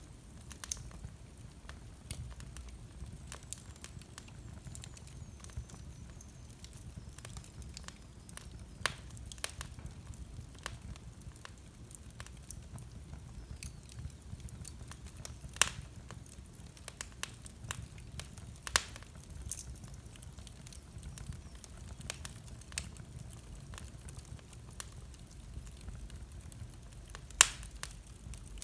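Fire in a fireplace crackling: scattered sharp pops and snaps over a low steady rumble, with louder pops about halfway through and again near the end.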